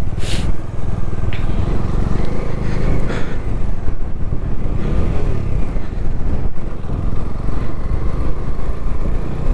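Bajaj Dominar 250 single-cylinder motorcycle engine running steadily as the bike is ridden along. There is a short hiss about a quarter second in.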